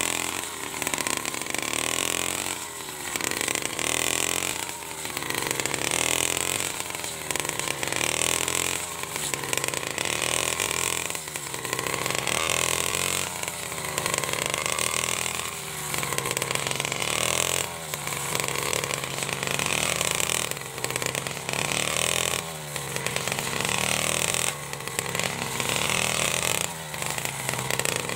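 49cc backpack brush cutter engine running at high speed, its pitch rising and dropping back every couple of seconds as the operator swings the cutting head through dry rice stubble.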